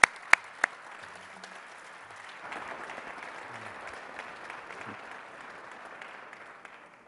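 Audience applauding, opening with a few loud single claps close to the microphone; the applause grows louder a couple of seconds in and dies away near the end.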